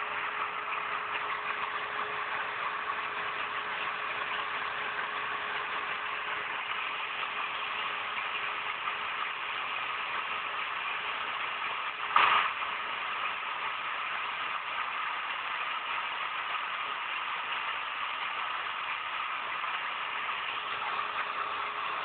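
CNC router running steadily as it carves a 3D engraving into MDF (fibrofácil), a constant whine of spindle and cutting, with one short louder burst about halfway through.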